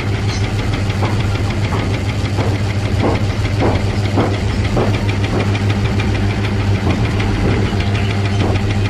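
A steady, low engine-like hum running evenly, with faint regular knocks about every half second.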